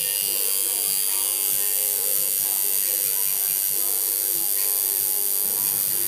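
Electric tattoo machine buzzing steadily as its needle inks lines into skin.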